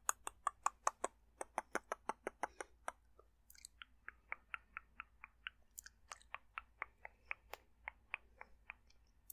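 Dry mouth sounds: a quick, steady run of tongue clicks and mouth pops, about four to five a second, with a brief pause about three seconds in.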